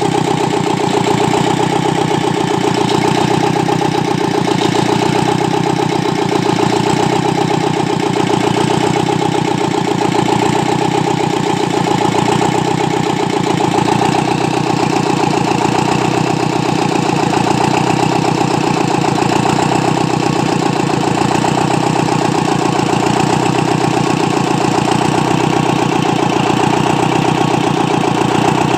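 Deutz D2011 L04 four-cylinder diesel engine idling steadily.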